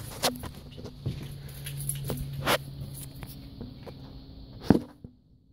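Movement and handling noise: scattered clicks and scuffs, a low steady hum that fades out about three seconds in, and one sharp knock near the end.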